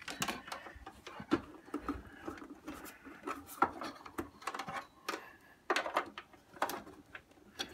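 Plastic housing of a Victor Clavia RC-G15MD CD radio-cassette player being handled and turned over: an irregular run of light clicks and knocks of hard plastic, with a few sharper knocks.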